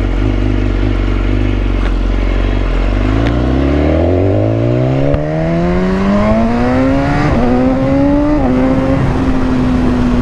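A motor vehicle engine running steadily, then accelerating from about three seconds in, its pitch rising for several seconds. The pitch drops twice as it shifts up a gear, then holds steady.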